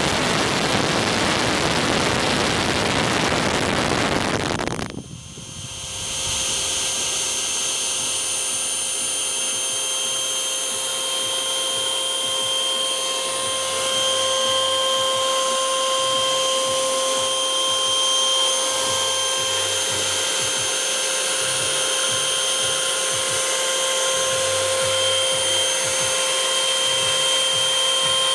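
Radio-controlled MiG-15 model jet's ducted-fan power unit running at full throttle. It begins as a loud rush of air from close behind the exhaust, dips sharply about five seconds in, then settles into a steady high whine with several held tones.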